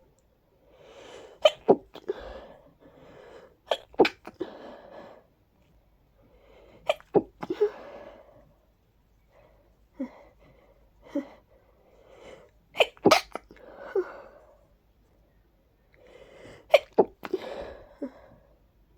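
A person sneezing in a fit of short, strong sneezes, mostly in quick pairs and triples, each group led by breathy gasping in-breaths. The loudest group comes a little after the middle.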